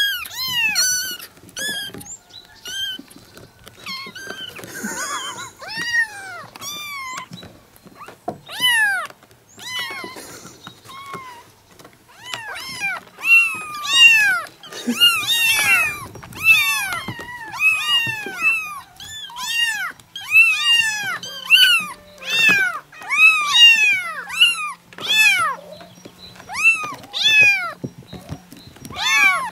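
A litter of seven four- to five-week-old kittens meowing over one another: high calls that rise and fall, overlapping, coming thicker and louder after about twelve seconds.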